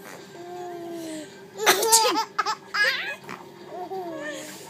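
A loud fake sneeze a little under two seconds in, followed by a four-month-old baby's bursts of laughter.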